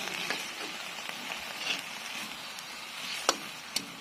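Ground pork, basil and vegetables sizzling in a wok while being stirred with a spatula, with a few sharp clicks of the spatula against the pan, the loudest about three seconds in.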